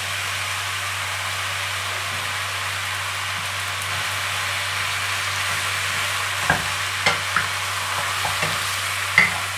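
Wide rice noodles, chicken and squid sizzling in a frying pan on high heat, a steady hiss, as a wooden spatula stirs them. From about six and a half seconds in, the spatula knocks against the pan a few times, the loudest knock near the end.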